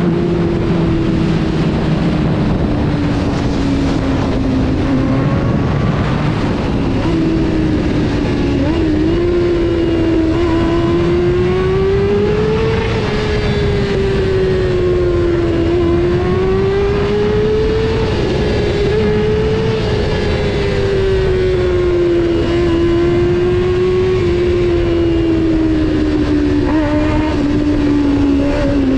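Honda CBR 600 F4's inline-four engine running at high revs while riding, its high pitch rising and falling gently as the throttle is eased on and off, over steady wind and road rush.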